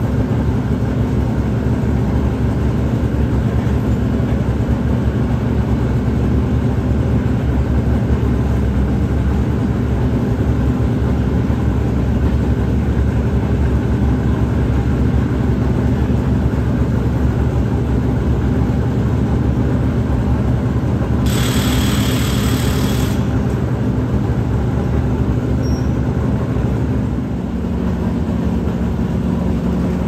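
NASCAR Cup Series race car V8 engines running at a steady idle during garage warm-up. A brief hiss comes about 21 seconds in, and the engine sound drops a little and shifts pitch about 27 seconds in.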